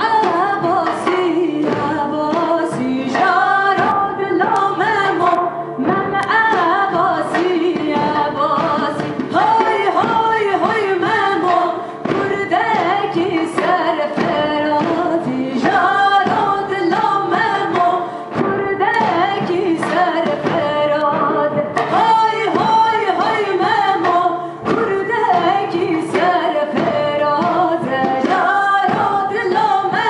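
Two women singing a song live, backed by a band.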